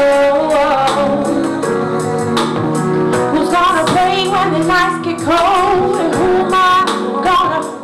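A woman singing a slow soul song over backing music with a steady beat. She runs through notes and holds some with vibrato.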